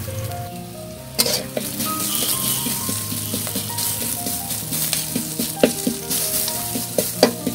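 Crushed garlic sizzling in hot oil in a black wok-style karahi, being browned for a tempering. A metal spatula stirs it, with scattered scraping clicks against the pan. The sizzle starts suddenly about a second in.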